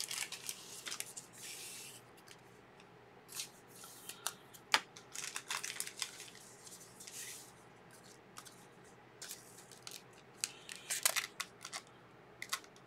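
Trading cards being handled by hand: short, faint scrapes, rustles and clicks of cardstock sliding against cards and sleeves, in scattered bursts with quiet gaps.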